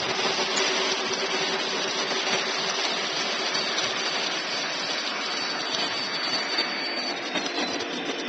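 Lionel O-gauge model train rolling past on FasTrack: a steady mechanical rush of wheels on the rails and the locomotive's motors, with a steady hum under it. It swells as the train draws near.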